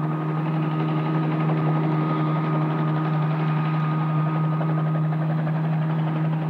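Light helicopter's engine and rotor running steadily, a dense fast-pulsing drone with a faint high whine above it.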